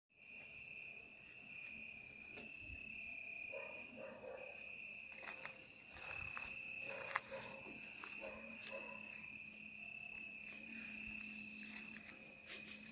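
Cricket trilling steadily on one high note, with scattered clicks and rustles of movement over it.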